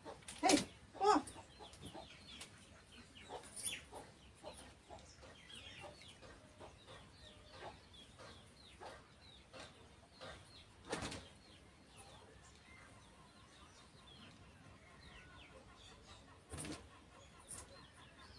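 A garment being shaken out with sharp flapping snaps, twice near the start and again twice later, while chickens cluck on and off in the background.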